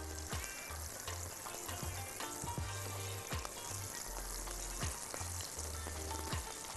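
Kofta meatballs frying in hot oil and butter in a pan: a steady sizzle with frequent small crackles and pops as the balls are set into the fat.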